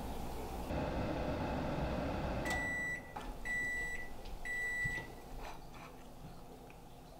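Microwave oven running with a steady hum, then its timer beeping three times about a second apart, the signal that the cycle has ended. A couple of faint clicks follow.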